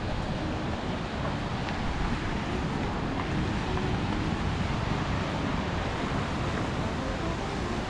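Wind rushing on the microphone over the steady wash of ocean surf: an even, unbroken noise.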